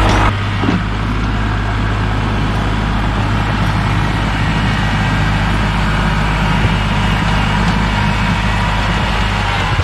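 Kubota L3301 tractor's three-cylinder diesel engine running steadily, with a low, even hum.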